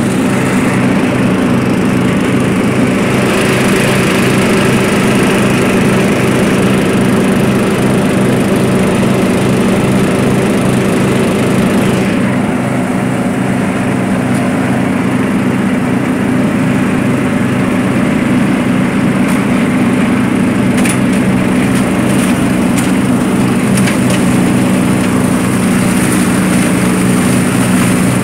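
Murray lawn mower engine running steadily under load while bagging leaves, with a few faint ticks about two-thirds of the way through.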